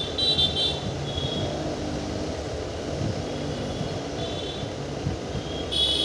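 Diesel-hauled passenger train running, a steady low rumble with short high-pitched squeals that come and go several times.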